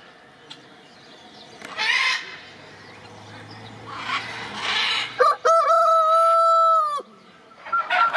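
A rooster crowing: after two rough, harsh calls, one long, loud crow holds a steady pitch and cuts off sharply about seven seconds in. Short clucking calls follow near the end.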